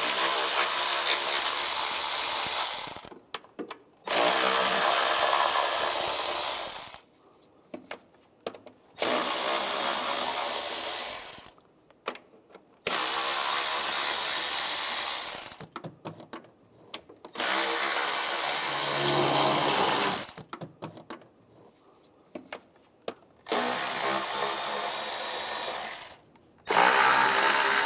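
Cordless electric ratchet with an 8 mm socket spinning out intake manifold bolts. It runs in seven separate bursts of two to three seconds each, with short clicks and taps in the gaps as the socket is moved from bolt to bolt.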